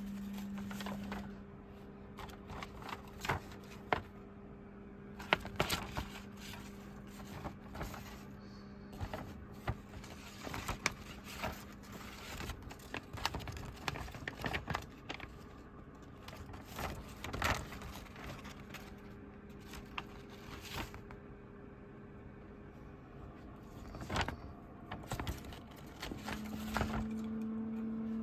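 Irregular sharp clicks and taps, scattered unevenly, over a steady low hum that drops away after the opening and returns near the end.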